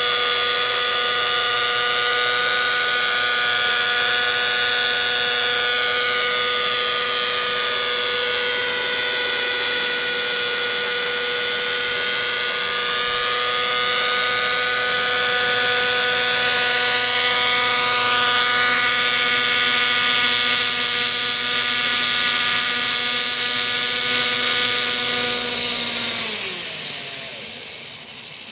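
Nitro glow engine (OS 55) of an Align T-Rex 600 radio-controlled helicopter running at steady high revs in flight, a high-pitched whine with the rotor's sound over it. About two seconds before the end the pitch slides down and the sound fades as the helicopter is set down and the engine and rotor wind down.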